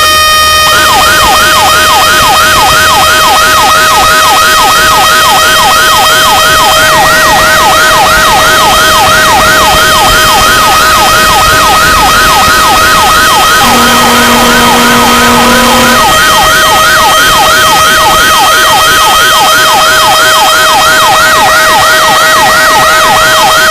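Fire pumper truck's electronic siren in a rapid yelp, about three quick sweeps a second, over a steady high tone. About 14 seconds in, a lower horn sounds for about two seconds.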